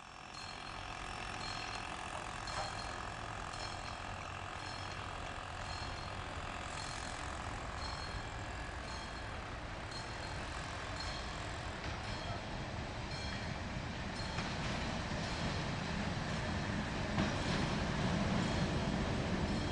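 Diesel locomotive approaching along the track, its engine rumble building steadily louder towards the end. A regular high ticking sounds a little over once a second throughout.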